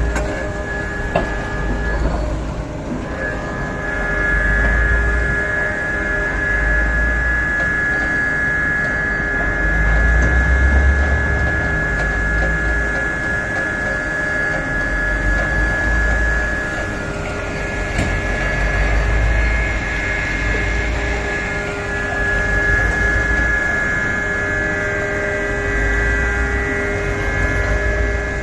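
Komatsu PC4000 hydraulic mining excavator working, its engine and hydraulics running with a steady high whine, the low rumble swelling every few seconds as it loads up digging into hard, poorly blasted rock. A few sharp knocks.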